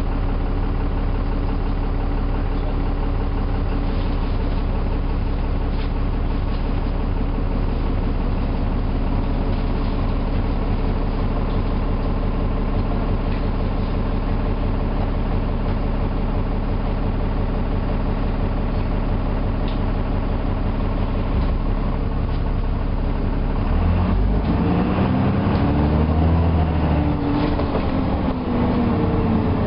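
Enviro400 double-decker bus engine running steadily at a constant low speed. About 24 seconds in, the revs rise and then fall back over a few seconds before settling again.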